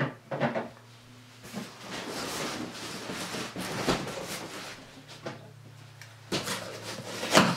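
Large cardboard shipping box being opened by hand: a few seconds of cardboard scraping and rustling, then flaps being handled with knocks and one sharp, louder thump near the end. A faint low hum runs underneath.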